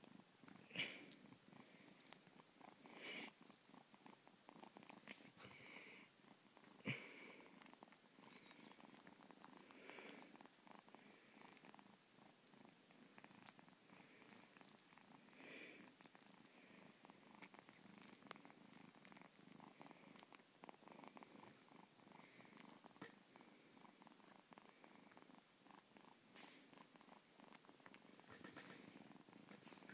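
Kitten purring faintly and steadily while nursing, with a few sharp clicks near the start and once or twice later.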